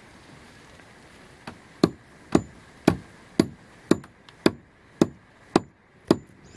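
Steady, even blows on wood, about two a second, starting about two seconds in: a tool striking a piece of wood over and over, each blow sharp with a short ring.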